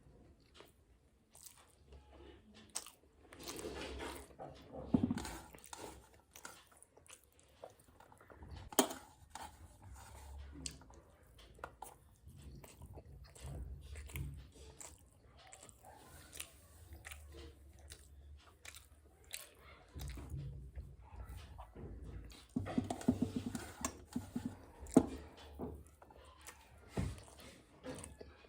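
Close-up eating sounds: chewing and crunching food, with many short wet clicks, busier and louder around four seconds in and again past twenty seconds.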